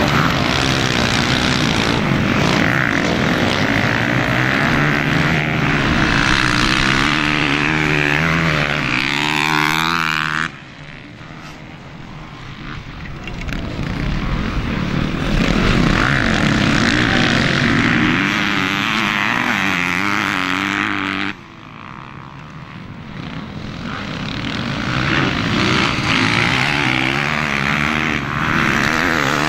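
Motocross bike engines revving hard, the pitch climbing and falling as riders accelerate and back off. The sound drops away suddenly about ten seconds in and again about twenty seconds in, then swells back as bikes approach.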